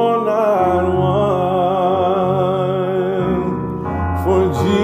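A man singing a gospel hymn, drawing out long notes with vibrato, over sustained keyboard chords that change a couple of times.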